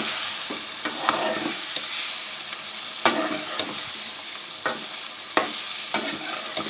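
Chicken and onion-spice masala sizzling as it fries in a pan, with a spoon stirring and scraping, knocking against the pan about once a second. This is the bhuna stage: the just-added ground spices being fried so they lose their raw taste.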